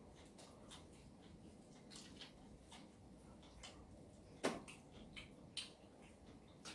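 Very quiet chewing of soft bread by two people, heard as faint scattered mouth clicks, with one sharper click about four and a half seconds in.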